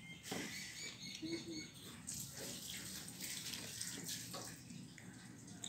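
Eating by hand: fingers mixing and squishing wet rice with dal and vegetables against metal thali plates, with small scrapes and clicks and some chewing.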